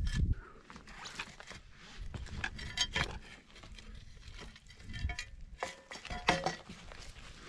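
Shovel blade scraping and clinking against rocky soil, stones and roots during hand digging: a string of irregular scrapes with sharp metallic clinks, the loudest a little after six seconds in.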